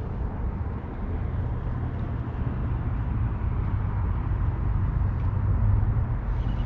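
A steady low rumble with no distinct knocks or clicks, swelling slightly about five seconds in.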